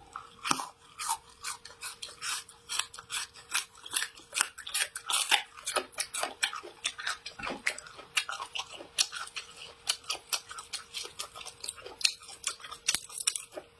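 Close-miked chewing of crisp raw food: a fast, irregular run of crunches, several a second.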